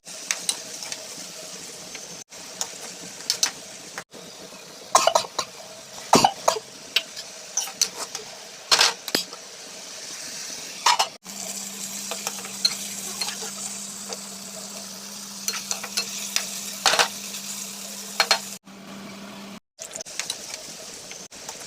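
Food sizzling in a pan while a spoon stirs and scrapes it, with sharp clinks of metal on the pan. A steady low hum joins for several seconds in the middle.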